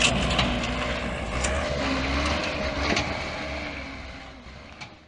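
Dump truck's engine running with a steady low rumble, fading out near the end.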